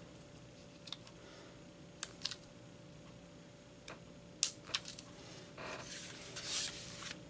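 A few small, sharp clicks and ticks as an X-Acto craft knife tip prises enamel dots off their sheet and presses them onto paper, followed near the end by a longer brushing rustle of an arm sliding across the paper layout.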